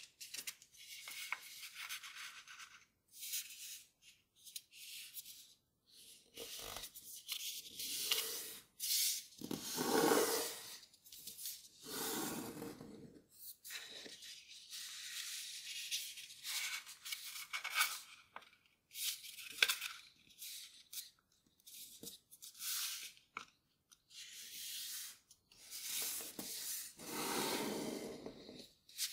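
Grainy origami paper rustling and scraping under the hands as it is folded and creased, in irregular bursts with brief pauses between them. The fuller rustles come about ten seconds in and near the end.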